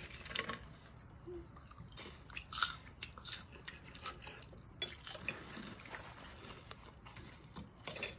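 Close-up crunching and chewing of crisp crackers, in short irregular crackles, with a few light clinks of a fork against a plate.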